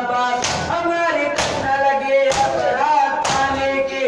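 Mourners chanting a nauha in unison, held notes over a steady beat, with a loud hand-on-chest slap of matam about once a second, four strokes in all.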